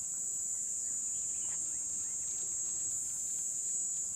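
A steady, high-pitched insect chorus trilling without a break, with a few faint bird chirps.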